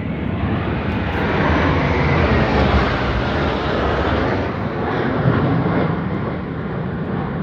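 Jet engine noise from a formation of military jet fighters flying past overhead: a loud, steady rushing roar that swells a couple of seconds in and then eases slightly.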